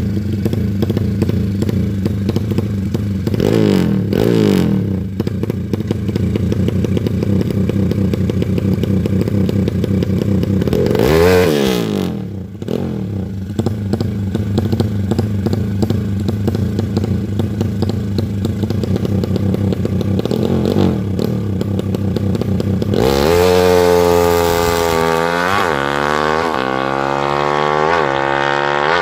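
Race-tuned motorcycle engine running at a steady idle, with short throttle blips at about 4 and 11 seconds in. From about 23 seconds in it is revved up and down repeatedly.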